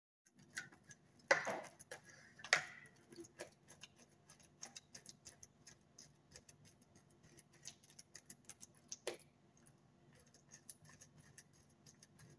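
A utensil tapping and scraping on a plate while mashing bananas: faint, irregular clicks, with a few louder knocks about one and a half, two and a half and nine seconds in.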